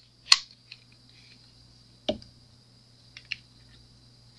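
Plastic resin bottles being handled and set down on a tabletop: a sharp click, a knock about two seconds in and a few light clicks a little later, over a faint steady electrical hum.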